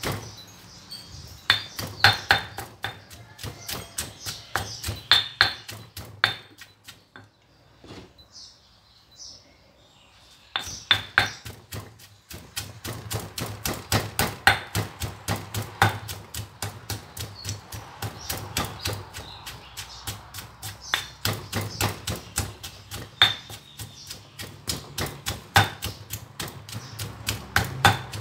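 Stone pestle pounding in a stone mortar (Thai krok), grinding grilled chilies, shallots and garlic with salt and shrimp paste into chili paste. Rapid, even knocks that stop for about three seconds a quarter of the way in, then carry on.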